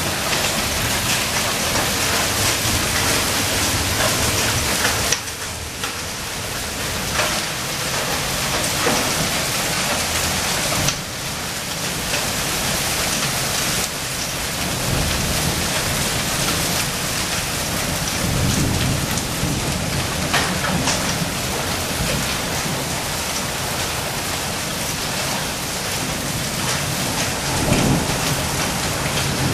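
Heavy rain mixed with hail pelting wet paving tiles: a dense, steady hiss full of small sharp ticks from hailstones striking the ground. Low rumbles rise under it about two-thirds of the way in and again near the end.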